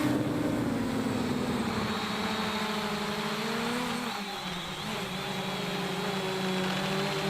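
JJRC X1 quadcopter's brushless motors whining in flight. The pitch slides down in the first couple of seconds, dips about four to five seconds in, and rises again near the end as the throttle changes.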